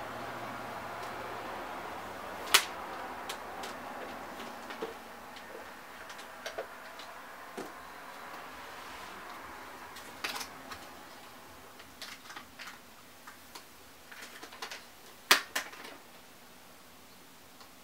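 Hands handling and hooking up an Apple Thunderbolt Display: scattered, irregular clicks and knocks, three of them sharper, over a steady hiss that fades out over the first ten seconds or so.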